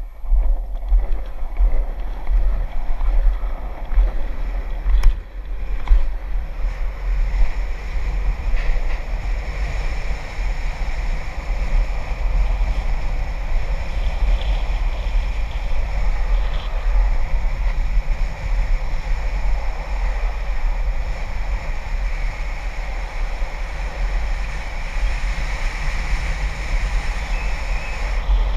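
Wind rushing and buffeting over a helmet-mounted action camera's microphone at downhill skateboarding speed, with a low rumble of wheels rolling on asphalt. It swells unevenly in the first few seconds, then settles into a steady rush.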